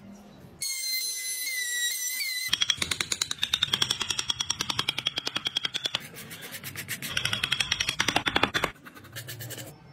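Corded power carving chisel hammering rapidly against hardwood as it cuts detail into a carved wooden truck cab, in two runs of fast even strokes. The runs come after a brief high, wavering squeak.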